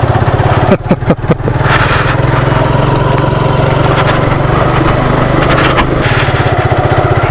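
Motorcycle engine running steadily at low speed as the bike is ridden along, its exhaust beat an even, fast pulse.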